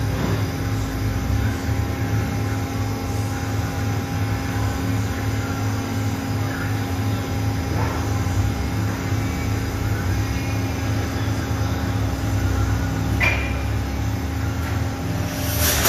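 Steady drone of running machinery, a low rumble with a constant hum. A single sharp click comes about 13 seconds in, and a brief rushing noise right at the end.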